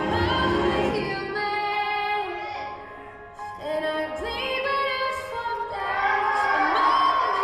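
A song with a voice singing long, held notes over the music; it thins out briefly about three seconds in, then swells again.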